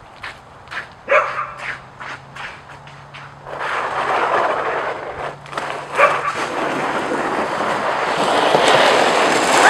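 A plastic sled scraping down an icy driveway, a rough hiss that grows steadily louder over the last six seconds as it comes closer. A short dog bark sounds about a second in, and another near the middle.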